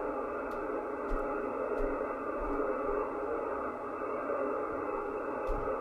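Steady hiss of HF band noise from a Yaesu FTdx5000 transceiver's speaker on the 20-metre band in sideband mode, cut off above and below by the narrow SSB receive filter, with no voice signal coming through.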